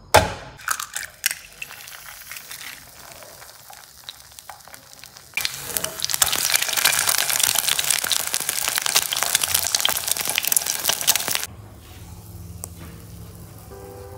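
An egg frying in hot oil in a nonstick frying pan, sizzling loudly from about five seconds in until about eleven seconds in. A few sharp clicks and knocks come near the start.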